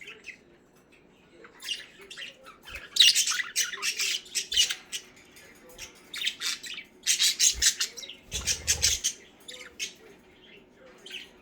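Pet budgerigars chattering and squawking in rapid, dense bursts of high chirps, loudest in two spells, with a brief low thump about eight seconds in.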